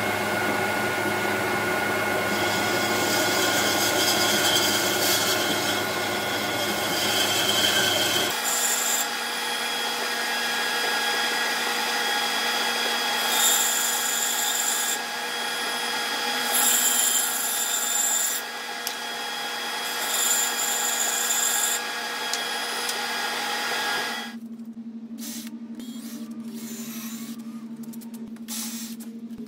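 Band saw running and cutting through a thick aromatic cedar blank: a steady whir with the hiss of the blade in the wood. The sound changes abruptly about eight seconds in. A few seconds before the end it drops to a quieter steady hum with scattered light ticks.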